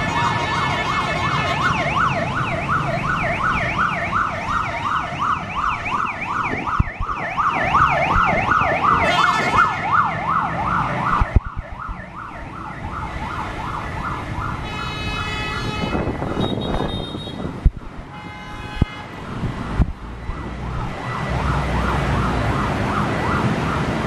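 Motorcade escort sirens yelping, rapid up-and-down sweeps of more than one siren layered together over city traffic and motorbike engines, stopping abruptly about eleven seconds in. A few short pitched blasts follow, then steady traffic noise.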